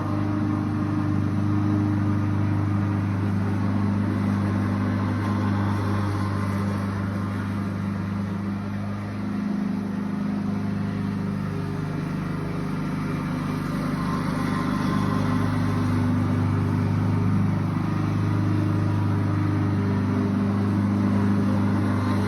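Lawnmower engine running steadily, its drone dipping briefly about nine seconds in.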